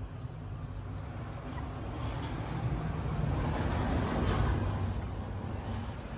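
Rushing background noise with a deep rumble that swells to a peak about four seconds in and then fades.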